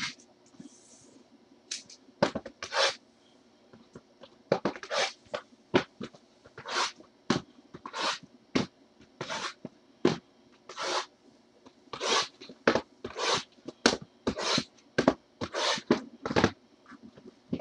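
Sealed trading-card hobby boxes being handled by gloved hands: a long run of short scrapes as the cardboard boxes slide against each other and are set down, about one or two a second.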